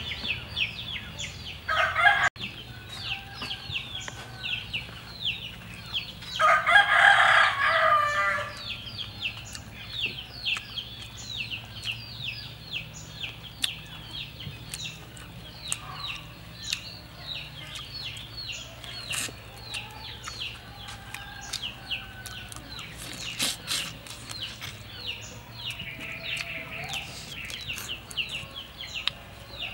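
A rooster crowing: a short call about two seconds in, then one long crow about seven seconds in, the loudest sound. Behind it runs a steady stream of quick, high chirps.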